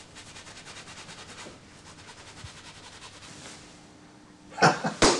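A man's hands and jacket: a quick run of rustling strokes, then two loud sharp slaps about half a second apart near the end.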